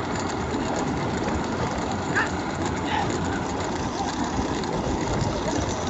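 Steady rumbling road noise of bullock carts rolling along a paved road, with brief faint shouts about two and three seconds in.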